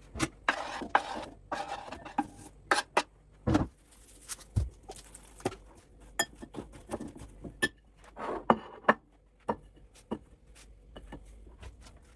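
Dishes and cooking utensils being handled: an irregular run of sharp clinks and knocks.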